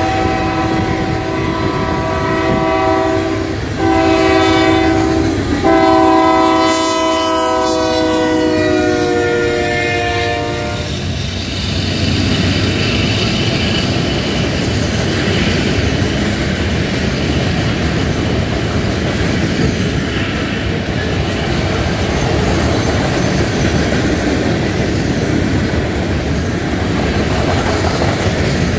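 Diesel locomotive's multi-chime air horn sounding a chord, broken briefly about 4 and 5.5 seconds in, its pitch dropping as it passes, and stopping about 11 seconds in. After that the steady rumble and clickety-clack of a long freight train's hopper cars rolling past.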